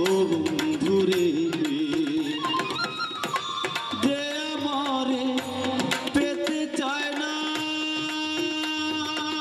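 Bangla folk band playing an instrumental passage: a harmonium holding sustained chords, a dotara plucking, and hand drums beating a steady rhythm.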